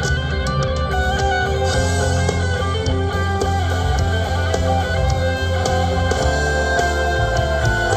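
Live band playing an instrumental passage with no singing: electric and acoustic guitars over a strong bass guitar line, with keyboard.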